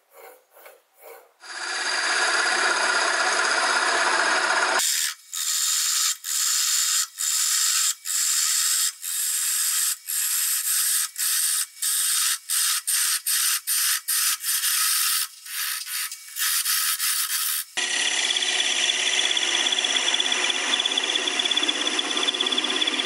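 Hand-held turning tool cutting a spinning wooden blank on a wood lathe. A steady cut at first, then from about five seconds in a run of short cuts broken by brief gaps, and a steady cut again for the last five seconds.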